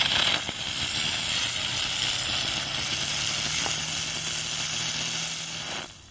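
Ground bloom flower firework burning on concrete, spinning and spraying sparks with a loud, steady hiss. The hiss starts suddenly as the fuse lights the charge and dies away near the end as it burns out.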